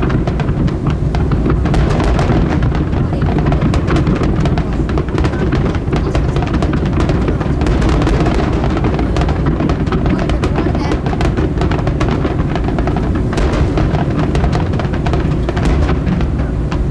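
Fireworks going off in a dense, continuous barrage: overlapping booms and rapid crackling with no break, along with music.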